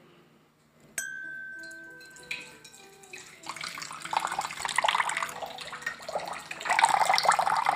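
A sharp clink about a second in that rings on briefly as one tone, then liquid being poured from about three and a half seconds, splashing and growing louder toward the end.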